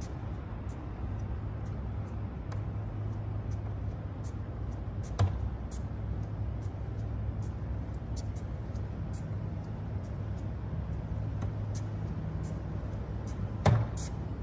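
Steady low engine hum, with faint scattered clicks and two louder short knocks, one about five seconds in and one near the end.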